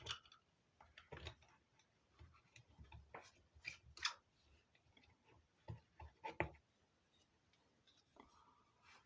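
Faint, scattered clicks and light knocks from a vintage galvanometer's parts being handled, the loudest about 4 and 6.4 seconds in.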